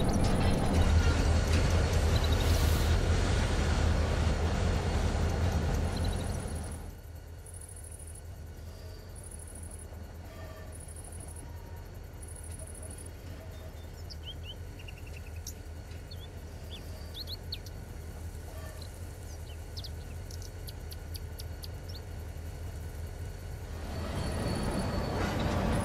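A steady low rumble that drops away about seven seconds in, leaving quiet outdoor ambience with birds chirping and a high pulsing chirp about once a second; the rumble swells back near the end.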